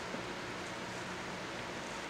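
Steady background hiss with a faint low hum, and one small click just after the start.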